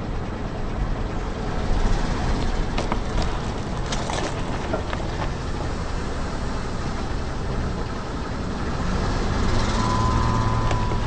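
Car engine running low while the tyre rolls onto a durian, the spiky husk cracking and splitting open with several sharp cracks between about two and five seconds in. A steady whine joins the engine near the end.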